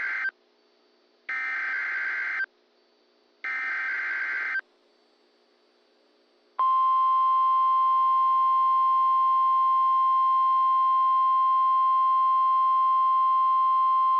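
NOAA Weather Radio Emergency Alert System broadcast: the end of one SAME header data burst and then two more full buzzing bursts, about a second each with a second's gap between them, followed about six and a half seconds in by the steady, loud 1050 Hz weather radio warning alarm tone. The sequence opens a Required Weekly Test.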